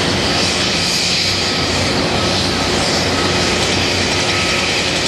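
Caterpillar 320D L hydraulic excavator working, its diesel engine running steadily under load as the machine digs, with a faint high whine coming and going.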